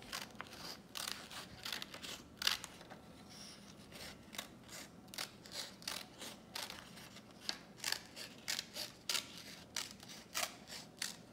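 Scissors snipping through construction paper in a long run of short, irregular cuts, about one to two a second.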